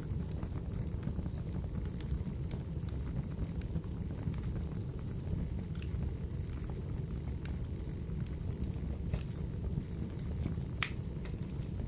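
Fire in a fireplace burning with a steady low rumble and irregular small crackles and pops, one sharper pop near the end.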